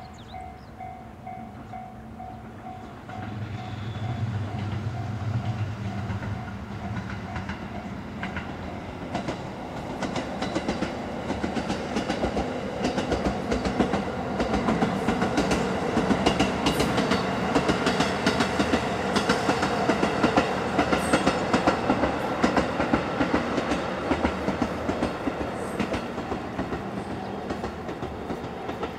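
Diesel train passing on the JR Kisei Main Line, its wheels clattering rapidly over the rail joints. It grows louder about three seconds in, and the clatter builds to a peak past the middle before easing slightly near the end.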